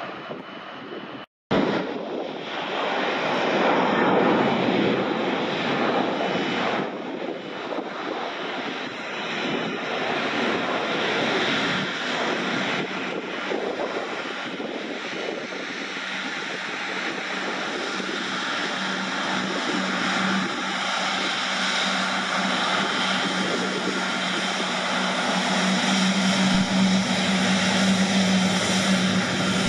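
Airliner engines running, a steady rush with a low hum that grows stronger over the last several seconds. A brief gap of silence just over a second in.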